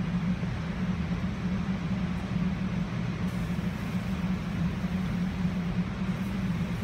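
Steady hum of commercial kitchen machinery: an even low drone with a constant rushing noise over it.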